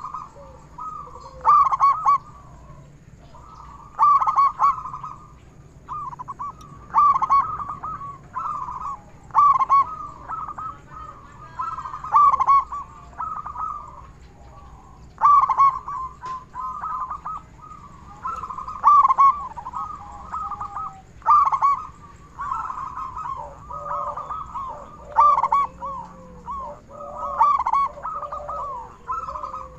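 Zebra dove (perkutut) cooing over and over. A loud phrase of quick coos comes every two to three seconds, with softer cooing in between.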